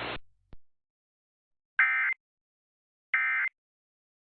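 Emergency Alert System end-of-message data bursts, the digital code that closes a weather warning: two identical short bursts about a second and a half apart, beginning about two seconds in. Just before them a static hiss cuts off at the start, followed by a faint click.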